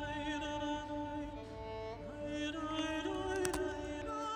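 Background music: a slow melody of long held notes with vibrato, string-like, with a couple of short clicks near the end.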